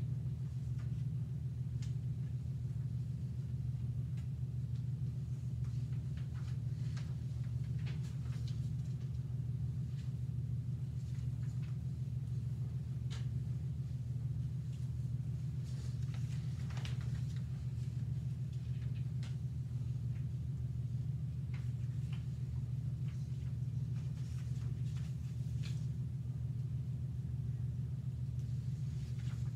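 Classroom room tone: a steady low hum, with faint scattered clicks and rustles over it.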